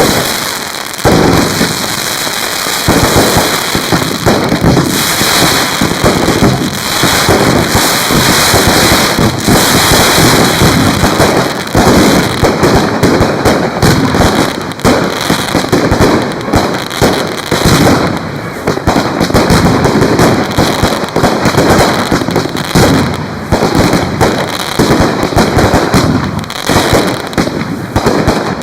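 Dense, continuous barrage of fireworks: bangs and crackling follow one another many times a second, easing briefly just after the start before building again.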